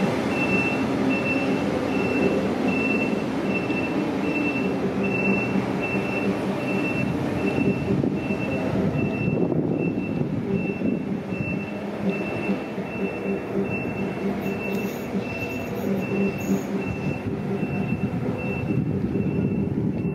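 ÖBB Taurus electric locomotive running with its train, a steady hum of several low tones over rail noise. A short high beep repeats about twice a second over it.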